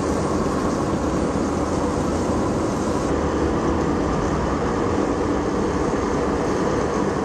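Steady engine and road noise of a moving car, heard from inside the cabin.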